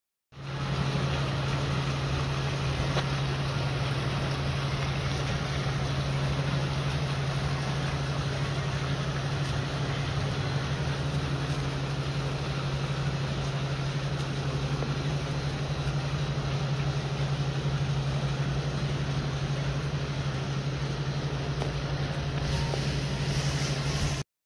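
A steady low machine hum with a constant hiss over it, cutting in abruptly just after the start and cutting off just before the end.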